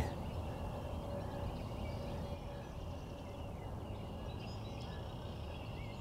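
Quiet outdoor ambience: a steady low background rumble and hiss with faint, distant bird calls.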